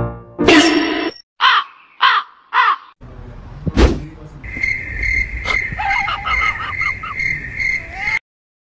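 Four loud, harsh animal calls in quick succession, caw-like in character. After a sudden change, a single knock is followed by a steady high tone with a run of quick, repeated chirps, which stops abruptly near the end.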